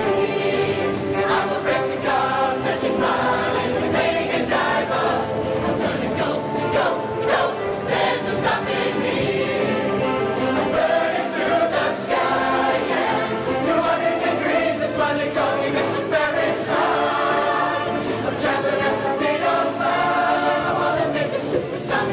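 A large mixed show choir singing in harmony over accompaniment, with sharp percussive hits marking the beat throughout.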